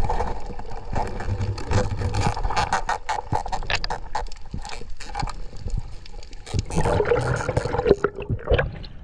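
Muffled underwater sound picked up by a diving camera: a low rush of moving water with many sharp clicks and crackles throughout, changing near the end as the camera nears the surface.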